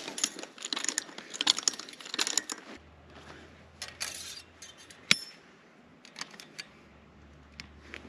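Footsteps through dry grass, then light metallic clinks and rattles of a chain wire strainer and plain fencing wire being handled at a steel post, with one sharp metal clink about five seconds in.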